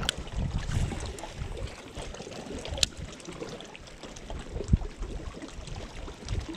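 A small bass splashes into the lake right at the start as it is released. After that, water laps and trickles against the boat's hull, with a few scattered clicks and knocks.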